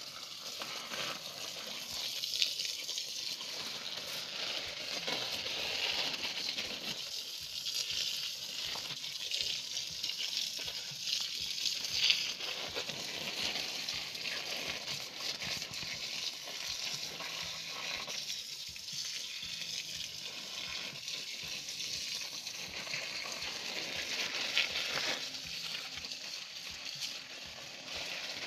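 Strong jet of water from a pump-fed irrigation hose spattering onto coffee leaves and soil, a steady hissing spray that swells and eases. There are two sharp clicks, one about two seconds in and one near the middle.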